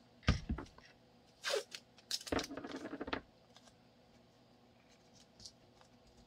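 Objects being handled: a low knock, then a few short scraping and rustling noises.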